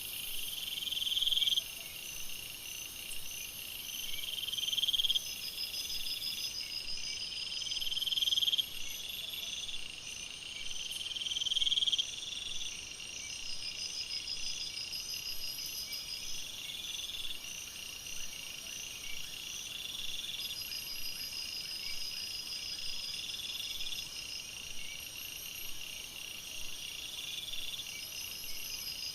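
Night-time tropical forest chorus of insects and frogs: several high, steady pulsing trills overlap. In the first half one louder call swells and then cuts off suddenly about every three and a half seconds.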